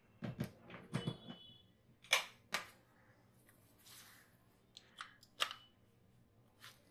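Handling sounds of a thermal printer's charger being connected: a couple of soft thumps, then a scattering of sharp plastic clicks as the plug and cable are handled and pushed into the printer's charging port.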